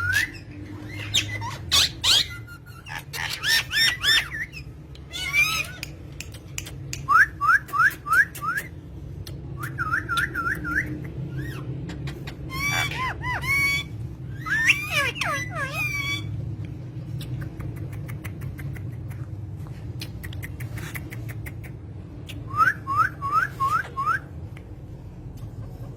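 Pet parrots calling: bursts of harsh squawks mixed with runs of four or five quick rising whistled chirps, over a steady low hum.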